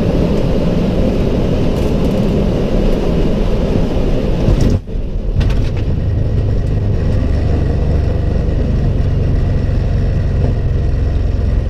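Jet airliner's steady rumble during touchdown and the rollout on the runway, just after the radio-altimeter countdown. It dips briefly about five seconds in, then continues as a steadier low drone.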